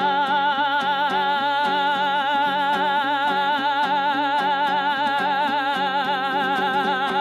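A Kazakh zhyr epic singer holds one long sung note with a wide, even vibrato over steadily strummed dombra accompaniment.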